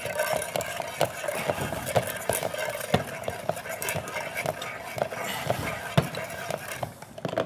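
Hand-cranked food mill being turned to press boiled potatoes into purée: a continuous grinding noise with many small clicks.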